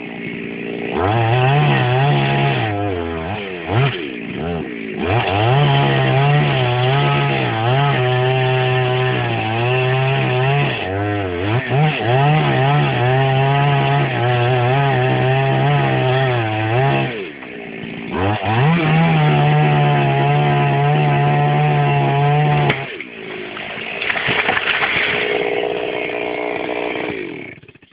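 Chainsaw running at high revs and cutting wood, its pitch dipping and recovering as the chain loads up. It eases off briefly about two-thirds of the way through, then revs up again before dropping quieter near the end.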